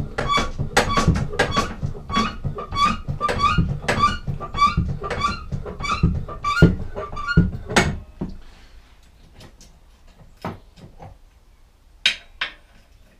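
Hydraulic scissor-lift bench being pumped up under a lawnmower: rapid, even pumping strokes, each with a short squeak, about two or three a second, stopping about eight seconds in. Then a few scattered knocks and a sharp click near the end.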